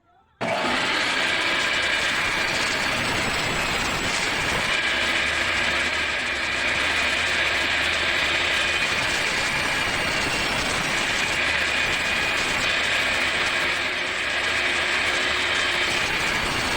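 Electric woodworking power tool running steadily on wood. It starts abruptly about half a second in, with a constant whine over a dense rasping noise.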